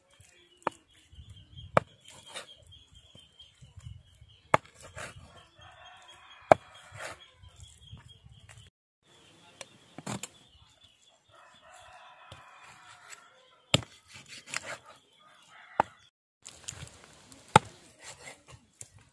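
Cleaver chopping raw chicken on a wooden chopping block: about eight sharp chops, one every second or few seconds. A rooster crows twice in the background.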